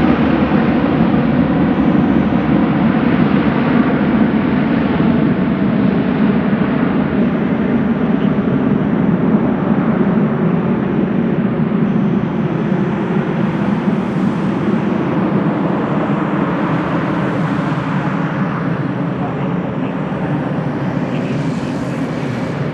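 Jet airliner engines at takeoff thrust: a loud, steady rushing noise that slowly fades as the aircraft departs.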